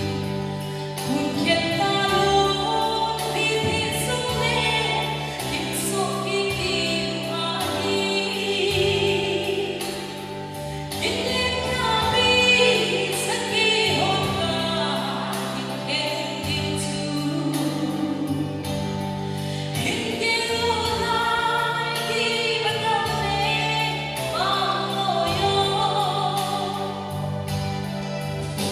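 A woman singing a worship song into a handheld microphone, amplified, over an instrumental accompaniment of held chords with a steady bass that changes every few seconds.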